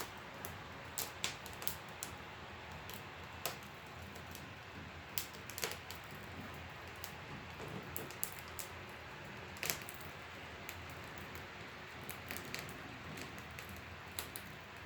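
Wood fire in a stove crackling faintly, with scattered sharp pops and ticks at irregular intervals over a quiet room.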